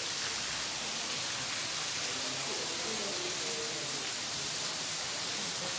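Steady hiss of garden fountain jets splashing into a pool, with faint distant voices.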